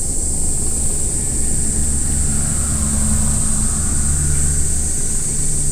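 A motor vehicle's engine droning past, coming in about a second and a half in and fading near the end, over a low rumble and a steady high-pitched hiss.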